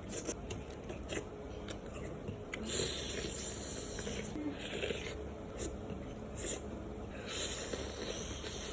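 Close-miked mouth sounds of a person eating chicken satay: wet chewing with scattered short clicks. Twice there is a hissy breath of about a second through the nose.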